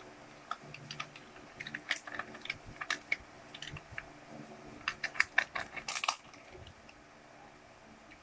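A small plastic toy-surprise car capsule being prised open: a run of light plastic clicks and cracks, thickest about five to six seconds in.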